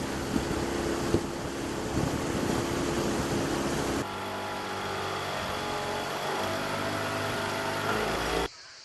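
A small boat's motor running on the water, with an edit about four seconds in to a steadier engine hum; the sound cuts off abruptly near the end.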